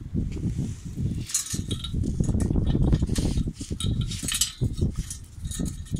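Metal clinks and rattles of a steel locking pin and its small chain being handled against the steel frame and threaded rod of a mower jack, over a low rumble.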